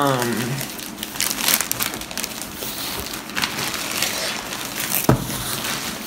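Packaging crinkling and rustling as a new laptop is unboxed and handled, with scattered clicks and one sharper knock about five seconds in.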